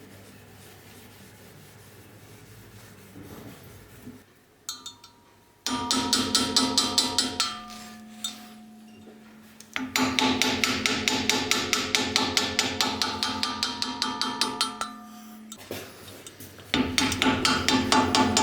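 Rapid hammer blows on metal, in fast runs of several strikes a second, with the struck metal ringing on steady tones beneath them. The runs start about six seconds in, after a quiet stretch.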